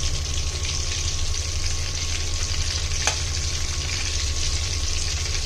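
Marinated chicken pieces and curry leaves sizzling steadily in hot oil in a pan, over a low steady hum, with a single click about three seconds in.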